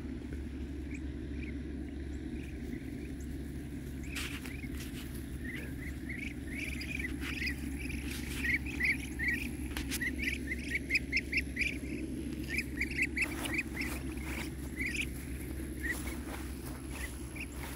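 Muscovy ducklings peeping: short high chirps, scattered at first, then coming thick and fast through the middle, over a steady low background rumble.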